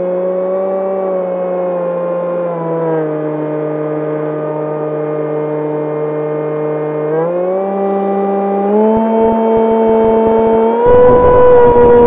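Electric motor and propeller of an E-flite Opterra flying wing, heard from the onboard camera: a steady whining drone. It drops in pitch about three seconds in and climbs again around seven to eight seconds as the throttle changes. Wind buffets the microphone over the last few seconds.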